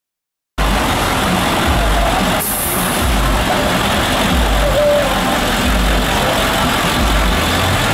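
Engine of a short school bus idling as the bus rolls slowly by, with a low, uneven throb. The sound cuts in about half a second in, and a brief high hiss comes about two and a half seconds in.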